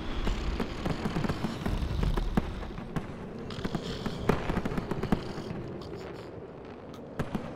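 Fireworks: the low rumble of a bang dying away, then scattered sharp pops and crackling, with a louder pop about four seconds in.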